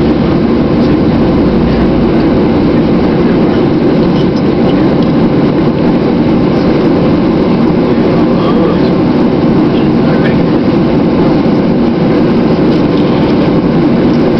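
Steady low rumble inside an airliner cabin, with the engines and air system running at low power before the takeoff roll.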